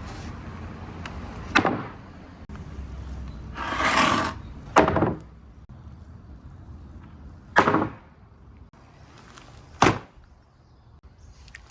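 Marbles running down a marble run: a rolling rush that swells for about half a second, and single sharp clacks a few seconds apart as marbles drop and strike the track.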